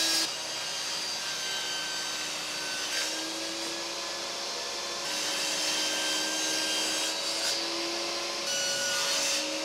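Table saw running and ripping a sheet of plywood: a steady motor whine with the hiss of the blade through the wood, changing abruptly a few times.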